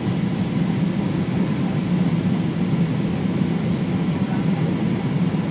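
Steady engine and airflow noise heard inside the cabin of an Airbus A320-family airliner descending to land: a constant low rumble with faint steady high tones above it.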